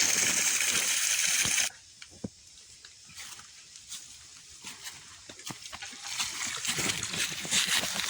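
Water spraying and splashing from a broken irrigation pipe T-fitting, a loud steady hiss that cuts off suddenly about two seconds in. After that come faint knocks and small splashes, and the splashing water grows louder again near the end.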